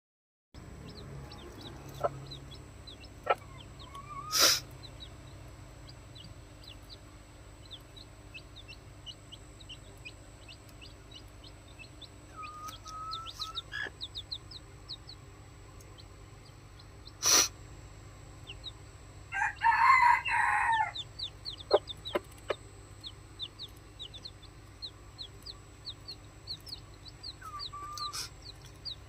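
Newly hatched red jungle fowl chicks peeping repeatedly in short high notes, with a few louder sharp calls. About twenty seconds in comes one harsh call lasting over a second, like a crow.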